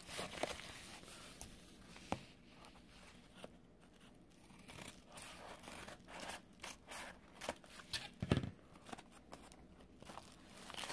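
Scissors snipping open a padded paper mailer, with faint crinkling and rustling of the paper as it is handled. A brief low thump comes about eight seconds in.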